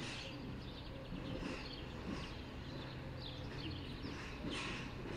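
Small birds chirping in short, high calls that come every half second to a second, over a faint steady low hum.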